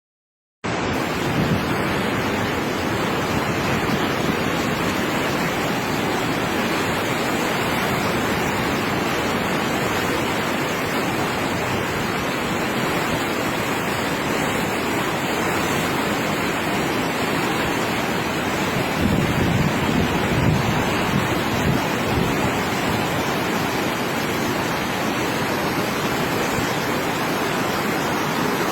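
Rushing floodwater of a river in spate, a loud, steady roar of water that starts abruptly about half a second in. A few low gusts of wind hit the microphone about twenty seconds in.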